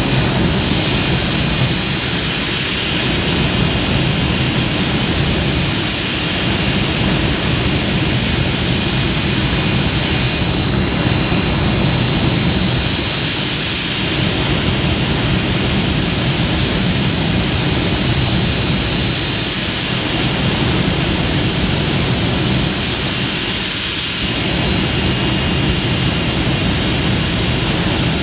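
Jet engine running steadily at high power: a constant roar with a high turbine whine held on one pitch, which edges slightly higher and louder about four seconds before the end.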